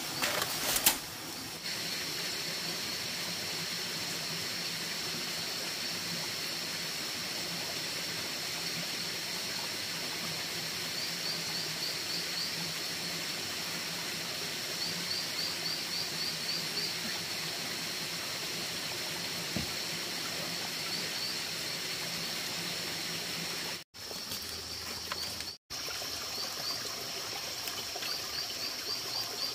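Water trickling and flowing steadily, with a steady high-pitched buzz and short chirping trills now and then above it. A single sharp knock sounds about a second in.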